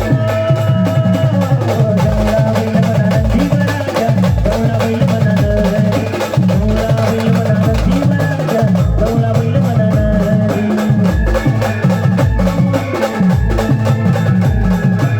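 Live brass band music: a steady, heavy drum beat under percussion, with a wavering melody line over it.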